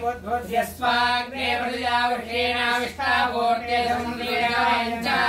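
Sanskrit puja mantras being chanted in a sung, melodic recitation, with notes held and drawn out.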